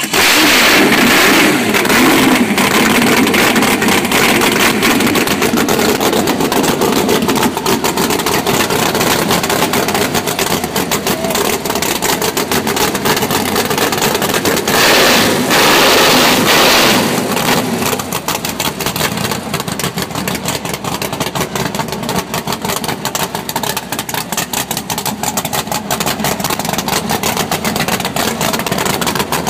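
600-cubic-inch V8 engine running loud with fast, rapid firing pulses. It is blipped to higher revs about halfway through, then settles into a choppy idle.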